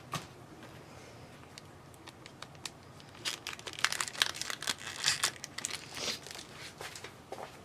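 Crinkling and rustling of trading-card pack wrappers and plastic being handled, in a string of short crackles starting about three seconds in.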